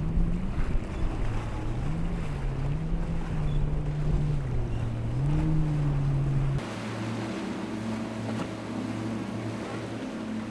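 A small open boat's engine running hard through rough water, its pitch rising and falling, over wind rumble and splashing waves. About six and a half seconds in this gives way suddenly to the steadier, even drone of twin Yamaha outboard engines running at speed.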